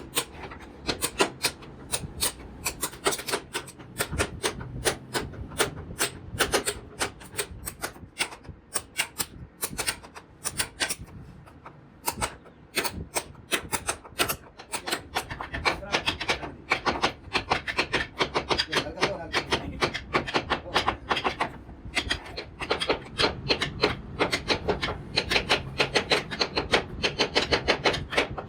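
Hand tool working wood in quick repeated strokes: a dense run of short, sharp clicks and scrapes, several a second, without a break.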